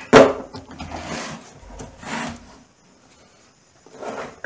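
Wooden project box scraping and rubbing on a tabletop as it is turned and slid by hand: a loud scrape just after the start, a couple of softer ones, a quiet second, then more handling near the end.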